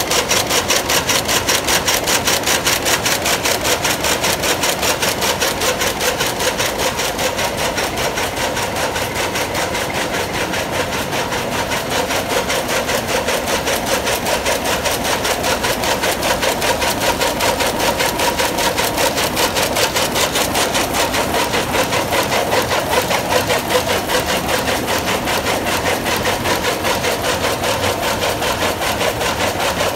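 Dornier rapier loom with an electronic jacquard weaving at full speed: a rapid, even, mechanical clatter of several beats a second, one for each pick of weft, holding steady throughout.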